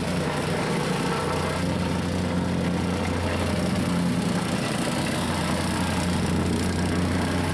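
Gasoline-engine vibratory plate compactor running steadily, tamping down a fresh hot-mix asphalt pothole patch.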